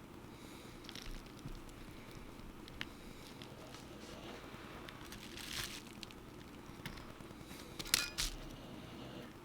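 Small repair tools clicking and scraping on an iPhone 7 Plus screen assembly while its home button is being taken out: scattered faint ticks, a short scratchy rasp about halfway through and a sharper click near the end, over a steady low hum.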